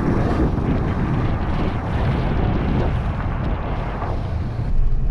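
A car driving, with steady road and engine rumble and wind buffeting the microphone.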